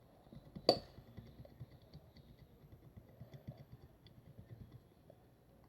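One sharp click under a second in, followed by a run of soft, irregular taps and clicks that die away near the end.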